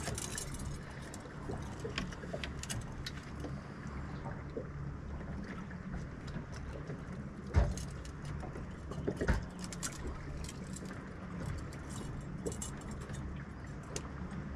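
Boat motor running with a steady low hum while trolling, with scattered clicks and clatter of gear being handled and two sharp thumps, about seven and a half and nine seconds in.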